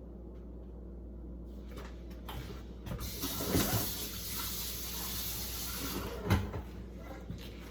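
Water running from a kitchen tap for about three seconds, starting a few seconds in, with two short, loud sounds: one soon after the water starts and one as it stops.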